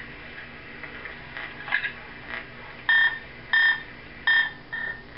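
Telephone keypad beeping as its buttons are pressed: four short beeps, about two-thirds of a second apart, starting about three seconds in. A few soft rustles come before them.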